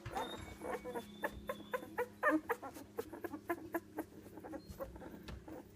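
One-week-old Labrador puppies squeaking in many short, pitched calls, several a second.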